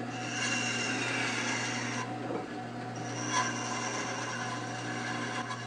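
14-inch bandsaw fitted with homemade blade guides, its motor running with a steady hum while the blade cuts through a wooden strip. The cutting noise is strongest in the first two seconds, with a brief sharp tick about three and a half seconds in.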